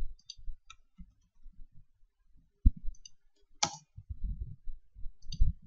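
Scattered computer keyboard keystrokes and mouse clicks, with two sharper clicks near the middle.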